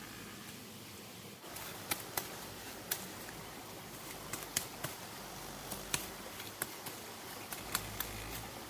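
Irregular sharp clicks and taps, about a dozen, over a steady background hiss that gets louder about a second and a half in.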